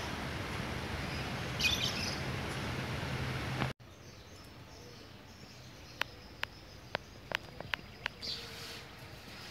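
Diesel locomotive approaching in the distance: a low engine hum under a steady outdoor rumble, with a bird chirping briefly. Just under four seconds in, the sound cuts off abruptly to quiet outdoor ambience, with birds and a scatter of short, sharp ticks.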